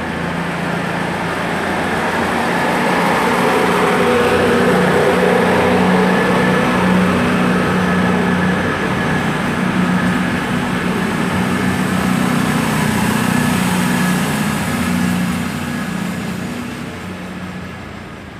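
CrossCountry Class 220 Voyager diesel multiple unit departing, its underfloor Cummins diesel engines working under power as it draws away. It grows louder over the first few seconds as the train passes close by, holds steady, then fades near the end as it pulls away into the distance.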